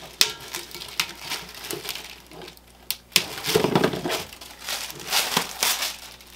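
Plastic wrapping crinkling and rustling as it is handled and pulled off a metal stand plate, with a few sharp clicks among it; the rustling is loudest a little past halfway.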